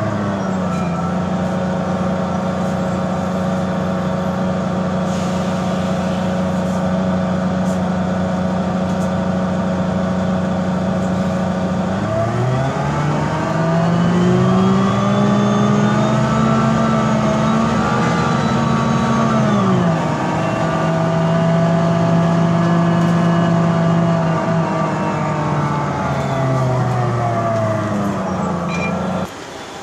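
Mercedes-Benz O405G articulated bus's diesel engine and Voith DIWA 854 automatic gearbox running with a steady pitched drone. About twelve seconds in the pitch rises as the bus accelerates and holds high, settles lower near twenty seconds, then falls away near the end before the sound cuts off suddenly. This is the engine the uploader calls bad, with a weird motor sound.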